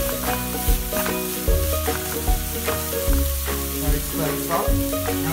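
Grated vegetables and paneer sizzling in a nonstick frying pan while a wooden spatula stirs them, scraping and knocking against the pan several times a second. Background music plays underneath.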